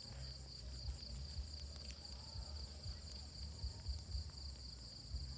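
Wood fire crackling with scattered sharp pops, over a steady high chirring of insects and a low rumble.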